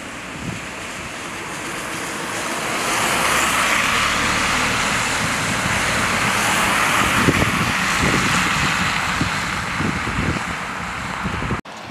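Steady hiss of heavy rain in a wet street, swelling louder for several seconds through the middle and cutting off suddenly near the end.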